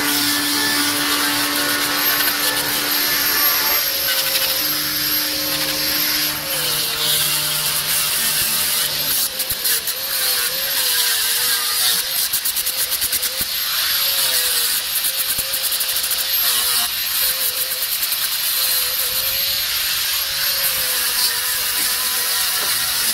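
Handheld electric disc sander grinding on the steel body panel of a bus, a continuous grinding whir. Its motor pitch dips and recovers now and then as it is pressed against the panel. It is sanding rust spots and paint blisters back to bare metal before they are filled with epoxy putty.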